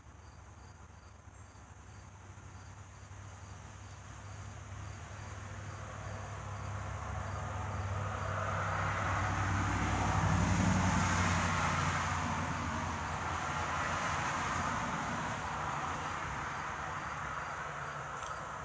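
Diesel locomotive, a former Canadian National unit, running with a low engine hum, growing louder toward the middle and then slowly fading as it passes. Crickets chirp steadily throughout.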